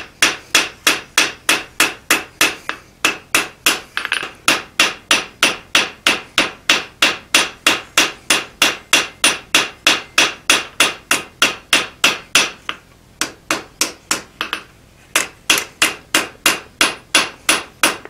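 Hand hammer striking a hot steel drawknife blank on an anvil in quick, even blows, about three a second, each ringing off the anvil. The blows pause briefly twice a little past the middle. These are light straightening and smoothing blows at a low heat, not heavy forging.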